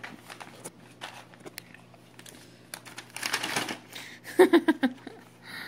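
A sheet of paper crinkling and rustling as a Springer Spaniel puppy chews and tugs at it, with many light taps and clicks and a louder stretch of crinkling about three seconds in. A short sound from a voice follows about a second later.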